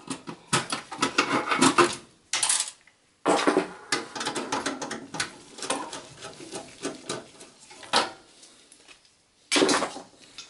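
Irregular metallic clinks and rattles as a Torx T15 screwdriver works screws out of a steel desktop PC case and the screws and parts are handled. There is a sharp click about 8 seconds in, a short lull, then more clatter near the end.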